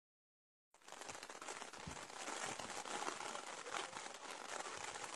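Floodwater rushing in a steady, noisy wash with a fine crackling grain, cutting in under a second in.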